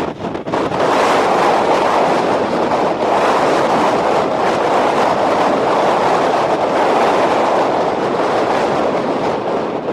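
Strong wind rushing against and around a vehicle, heard from inside it: a steady loud rushing noise with a brief dip about half a second in.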